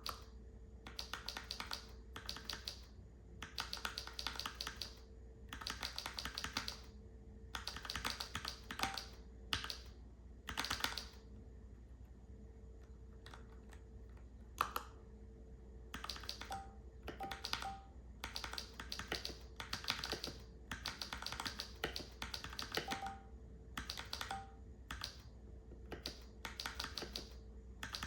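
Typing on a Keychron K4 v2 mechanical keyboard with Gateron G Pro brown switches: bursts of rapid key clicks a second or two long, separated by short pauses, with a few brief beeps in between.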